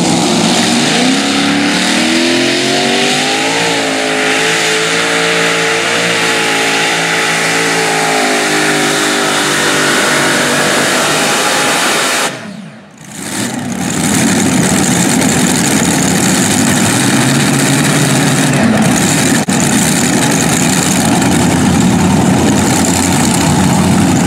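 Super modified pulling tractor's multiple supercharged engines at full throttle under load, pulling a weight sled. The engine note rises in pitch over the first few seconds, then holds. The sound dips sharply for about a second near the middle, then the engines run on loud.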